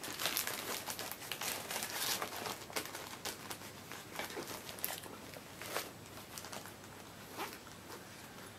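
Paper and packaging rustling and crinkling in short scratchy bouts as a cross-stitch chart is handled and craft supplies are rummaged through by hand, busiest in the first few seconds and thinning out after.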